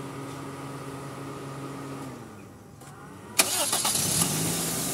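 Toyota 4A four-cylinder petrol engine idling, then winding down to a stop about two seconds in. About a second later it is cranked and starts at once with a loud burst and a brief rev, then settles back to a steady idle.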